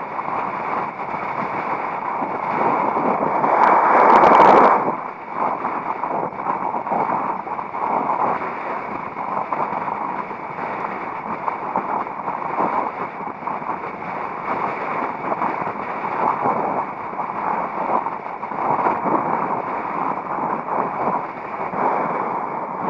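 Strong wind buffeting the camera microphone as a continuous rush of noise. It swells to its loudest about four seconds in, then drops away sharply.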